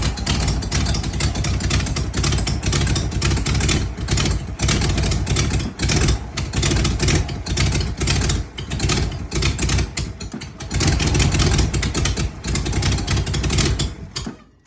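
1993 Ford Bronco's 302 (5.0 L) V8 running roughly, its sound dipping and surging irregularly: the rough idle and poor throttle response the owner is chasing. The sound cuts off suddenly near the end.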